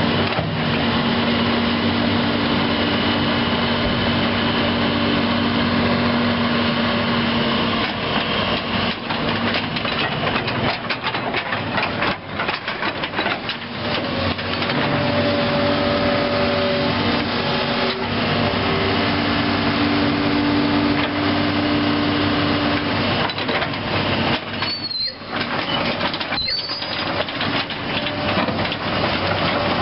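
Isuzu six-cylinder diesel engine of a Link-Belt 2800 Quantum excavator running steadily, with tones that shift in pitch several times. Two short, high squeaks come near the end.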